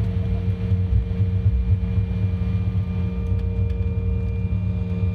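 Airliner cabin noise during the landing roll: a steady low rumble of the wheels and engines on the runway, with a faint steady whine over it.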